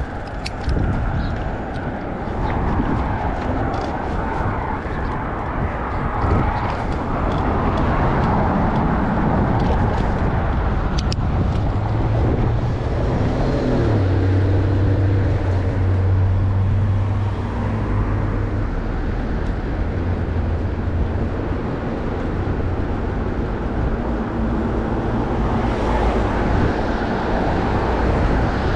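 Road traffic heard from a bicycle: cars and heavier vehicles running past, with a steady low engine hum from a large vehicle that grows loud for several seconds in the middle.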